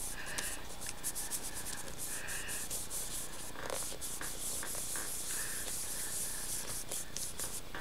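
Palms rubbing over the back of a cardstock tag pressed onto wet paste: a run of short, scratchy strokes of skin on paper.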